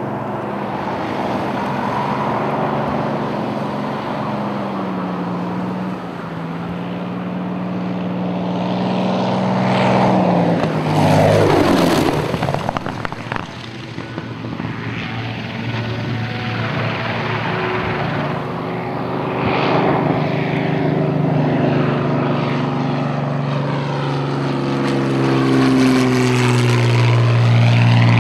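P-40 Kittyhawk fighters' piston engines and propellers making low passes: a steady engine drone, with a sharp falling sweep in pitch as one flies close by about eleven seconds in, another pass near twenty seconds, and the engine growing louder near the end.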